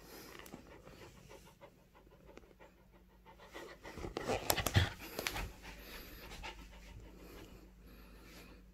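A beagle panting while it grips and tugs a rubber chew toy, with a short louder flurry of sharp sounds about halfway through.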